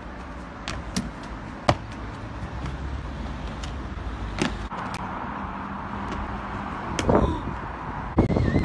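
Outdoor street ambience with a steady traffic hum, broken by a few sharp slaps and thuds from a freerunner's hands and feet striking stone walls and pavement during parkour vaults and landings. There is a louder rush of noise near the end.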